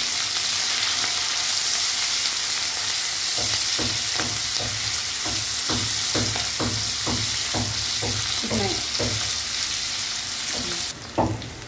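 Sliced onions and curry leaves sizzling in hot oil in an aluminium kadai as they soften, with a silicone spatula stirring and scraping through them at about two strokes a second from about three seconds in. The sizzle drops away sharply near the end.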